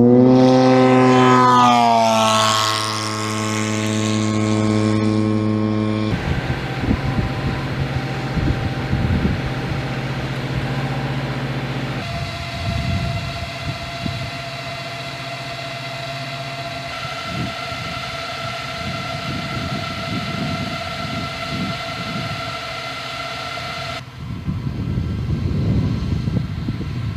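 RQ-7 Shadow unmanned aircraft flying low past, its engine and propeller drone dropping sharply in pitch as it goes by in the first couple of seconds. After that, a steady machine hum with a gusty rumble of wind on the microphone.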